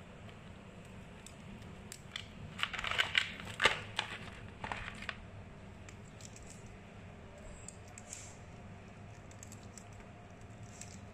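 Raw crabs being pulled apart by hand, their shells cracking and tearing in a quick cluster of crunches about two to five seconds in, then quieter handling with a few light clicks.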